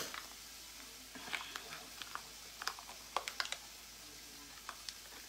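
Several light, scattered plastic clicks and crinkles as a small package of dried basil is opened and handled by hand.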